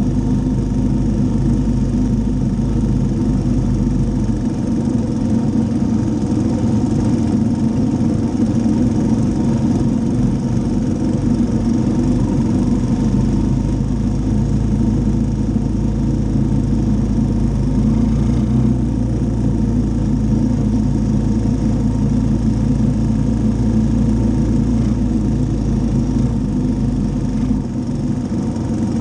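Three-wheeler ATV engine running steadily as the machine rides along, its note shifting slightly about four and eighteen seconds in.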